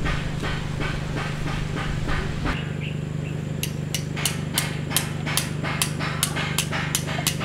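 Hammering at a house construction site, with sharp blows at about three a second through the second half, over a steady low hum.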